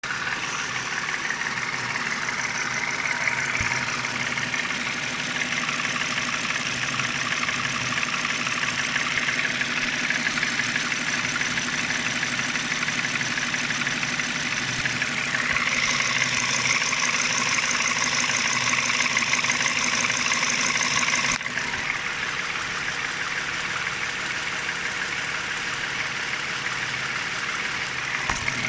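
Toyota 2GR-FE 3.5-litre V6 engine idling steadily with a fast, even knocking or tapping running through it, the knock the owner is showing. It grows brighter and a little louder for a stretch in the middle, then drops back suddenly.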